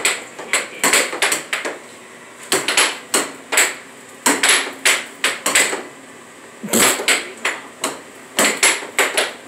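Air hockey puck clacking against the plastic mallets and the table's rails as it is struck back and forth, in quick irregular volleys with short pauses between rallies.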